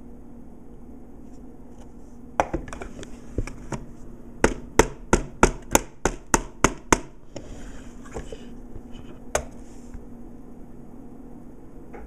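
A run of sharp hard taps, about three a second, with a few scattered ones before it and a single knock later, over a steady low hum.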